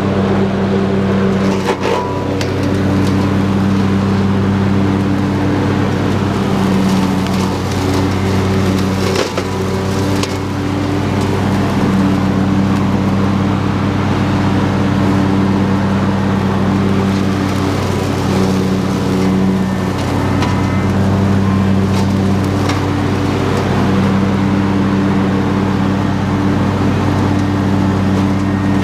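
Husqvarna YTH22V46 lawn tractor's V-twin engine running steadily under load as its mower deck cuts through tall ferns and brush. Scattered sharp snaps and cracks of sticks hit by the blades.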